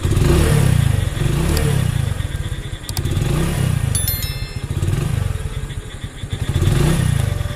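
Hero Splendor's single-cylinder motorcycle engine running, its revs rising and falling five times.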